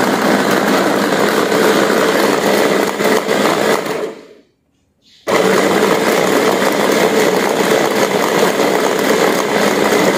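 Cosmos CB-802 4-in-1 blender's chopper running on high speed, chopping meat. The motor winds down and stops about four seconds in, is silent for about a second, then starts again abruptly and keeps running.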